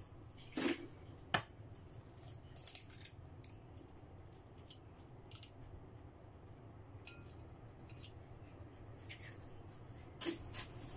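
Eggshells being cracked and pulled apart over a porcelain mixing bowl as the eggs are separated: two sharp cracks about a second in, then scattered light clicks and taps of shell.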